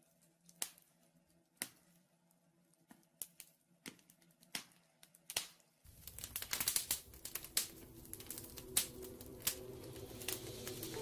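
Wood fire crackling in a fireplace, with sharp scattered pops. About six seconds in a fuller background rush comes in and the crackling grows denser and louder.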